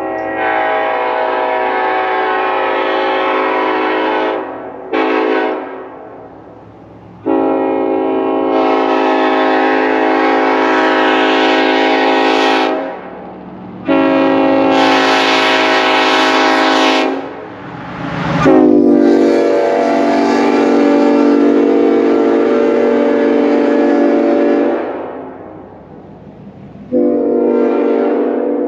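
Nathan K5LLA five-chime train air horn sounding its chord loudly in six blasts with short gaps, one of them very brief. Near the middle, one long blast starts with a short downward bend in pitch before settling.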